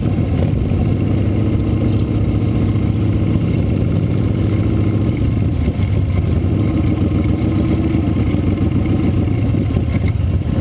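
Motorcycle engine running at low speed, heard from on the bike itself: low and steady, easing briefly about halfway and picking up again, with other motorcycles running close by.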